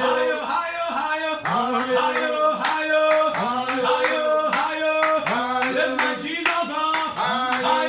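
A man singing a repetitive worship chant in short phrases, about two a second, with sharp rhythmic beats behind.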